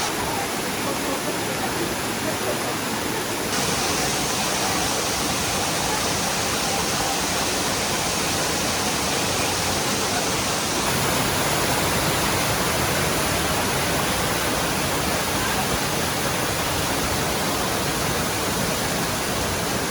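Waterfall running: a steady rush of falling water. Its tone changes suddenly twice, a few seconds in and again about halfway through.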